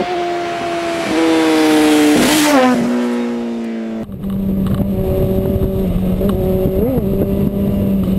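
A motorcycle engine passing by, its note sliding down and then dropping sharply in pitch about two and a half seconds in. After a sudden cut about four seconds in, a motorcycle engine runs steadily at cruising speed, heard from a following bike with wind rumble, with one short rev near the end.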